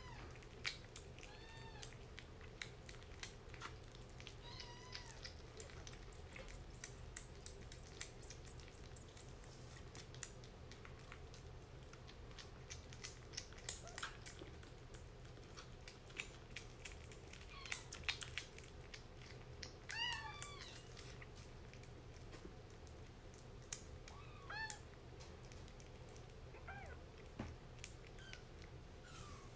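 Kitten eating wet food from a ceramic bowl: a steady run of small wet clicks from chewing and lapping. Short high kitten mews rise and fall several times, with the clearest about twenty seconds in.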